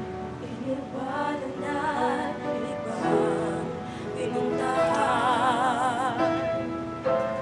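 A woman singing a Filipino-language song with strong vibrato on long held notes, over instrumental accompaniment.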